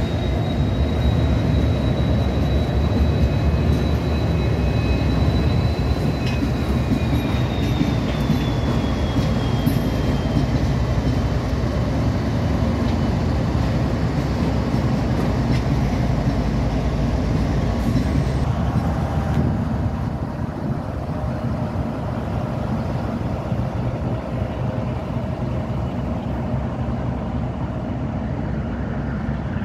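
Diesel freight locomotives rolling slowly past: a steady engine and wheel rumble, with a thin high squeal from the wheels on the rails over the first dozen seconds that rises slightly and then slides down and fades. The rumble eases about two-thirds of the way through as the locomotives draw away.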